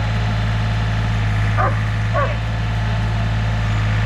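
Diesel engine of the digging equipment running steadily with a deep, even hum, and a dog barking twice, about a second and a half and two seconds in.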